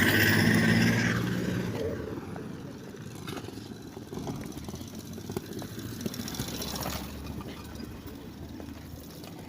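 A motor vehicle passing close by: its engine is loud in the first couple of seconds, then fades away, leaving quieter street background.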